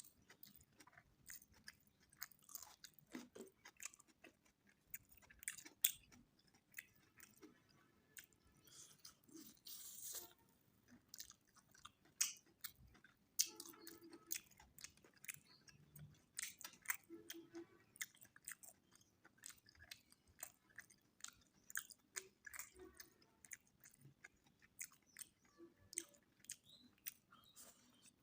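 Close-up chewing of mutton biryani: a quiet, steady run of wet mouth clicks and smacks.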